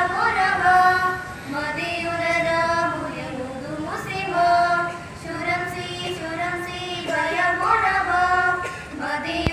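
Schoolgirls singing a song unaccompanied into a microphone, in phrases of long held notes.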